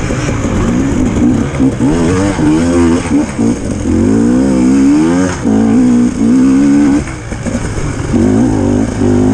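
Dirt bike engine revving hard under throttle, its pitch climbing and falling several times with brief dips in between as the rider works the throttle and gears.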